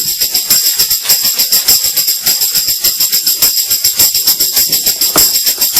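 Tambourine shaken and struck in a fast, even rhythm, its jingles ringing bright and continuous, as a backing music track.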